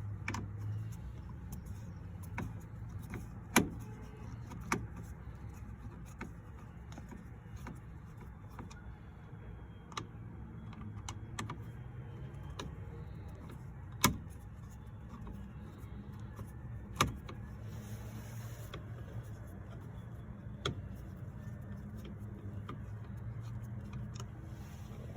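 Scattered sharp clicks and knocks of tools and plastic parts being handled at a Honda Civic's steering column during steering wheel and clock spring removal, over a low steady hum.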